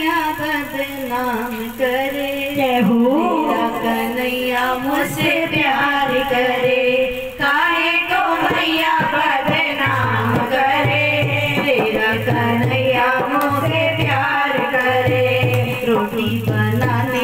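Women singing a Hindi devotional song (bhajan) together through a microphone, the melody carried by one voice. About halfway through, a low drum beat joins, about one beat a second.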